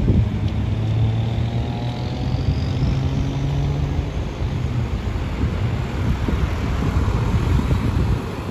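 Road traffic: a vehicle's engine running with a steady low rumble, with a faint rising whine over the first few seconds.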